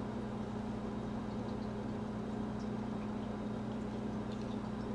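A steady low hum at an even level, with a few faint ticks.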